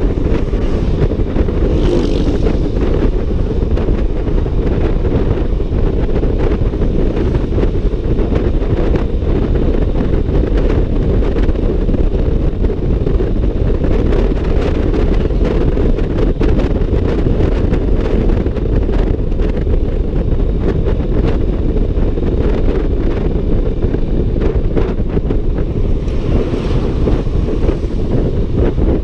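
Steady wind buffeting the microphone on a Honda ADV 150 scooter riding at road speed, with the scooter's running noise underneath. A faint higher swell comes through briefly about two seconds in and again near the end.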